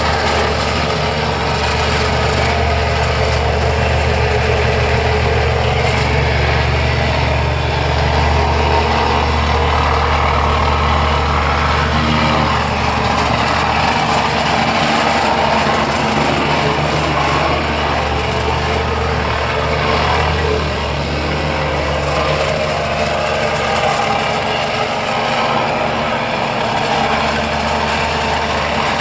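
Compactor engine running steadily as it compacts a bed of broken brick chips, with a steady low drone and little change.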